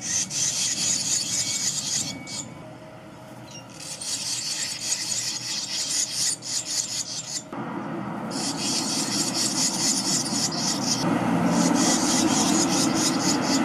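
Barn swallow nestlings begging: a rapid, raspy chatter from the nest, breaking off twice, a couple of seconds in and again about halfway through.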